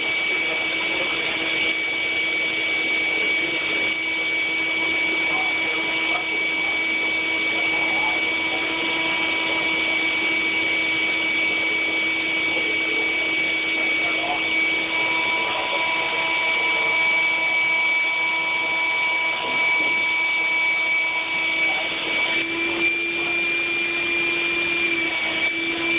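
Steady electric whine and running noise of a model railroad train. Several steady tones ring over a hiss, and the pitch steps up slightly near the end.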